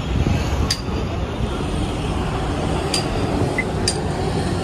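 Steady rumble of road traffic, with three sharp clicks over it.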